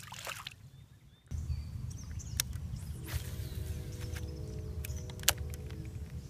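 Low rumble of wind on the microphone with scattered clicks and knocks of fishing tackle being handled in a small boat. A faint chord of several steady tones comes in halfway through, and one louder click comes near the end.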